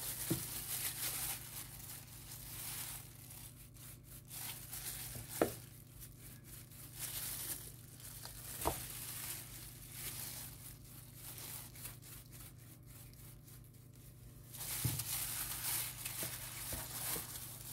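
Plastic-gloved hand rubbing seasoning into a raw whole chicken in a plastic bowl: crinkling of the glove and wet rubbing on the skin as the bird is turned, with a few short knocks.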